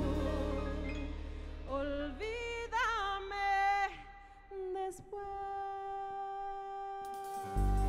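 A woman singing a ballad live with a keyboard-led band: sweeping vocal runs about two to three seconds in, then one long held note. A loud low sound comes in suddenly near the end.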